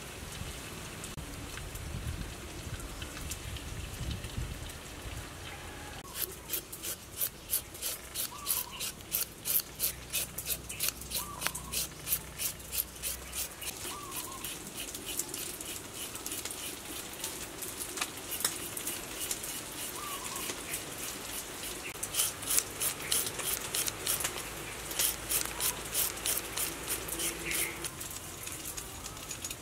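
Palm leaf cakes sizzling in hot oil in a wok, then, about six seconds in, a long series of quick crisp strokes as a carrot is cut by hand.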